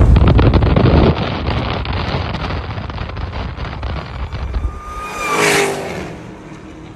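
Dodge Charger SRT Hellcat Redeye's supercharged 6.2-litre HEMI V8 at full throttle, loud and deep, then cutting off sharply about a second in and fading with crackling from the exhaust. A brief swell of engine noise comes about five seconds in before it dies away.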